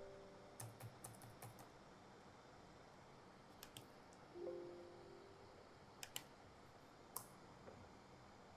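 Laptop keyboard keys clicking faintly: a quick run of keystrokes just after the start, then a few single clicks spaced a couple of seconds apart. A brief low hum sounds about four and a half seconds in.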